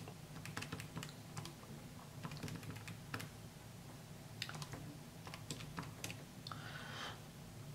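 Faint, irregular clicks of keys being tapped as a multiplication is worked out, over a low steady hum.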